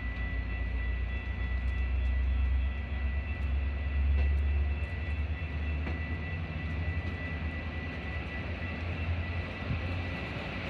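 Metra bilevel passenger train rolling past at low speed: a steady low rumble that swells about four seconds in, with a thin steady high whine and a few faint clicks from the wheels.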